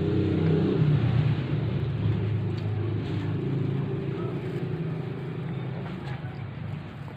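Low, steady engine hum of a motor vehicle, growing gradually fainter.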